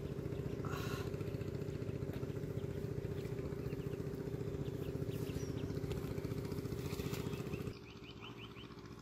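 A small engine running steadily with an even, fast pulse; about three-quarters through it drops sharply to a quieter level.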